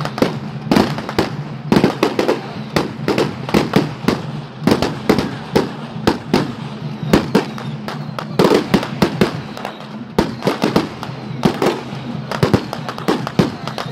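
Firecrackers going off in dense, irregular volleys, several sharp bangs a second.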